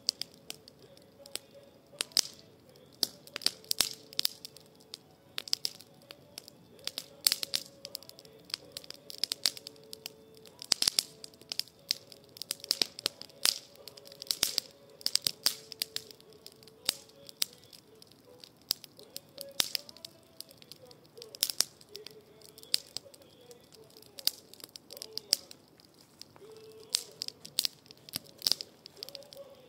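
A wood fire of brush and branch cuttings crackling, with irregular sharp pops several times a second.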